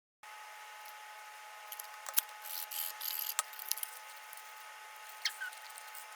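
Cardstock paper being folded and creased by hand into a small cube: faint rustling and crinkling with sharp creasing clicks, the loudest about two seconds in, over a faint steady hum.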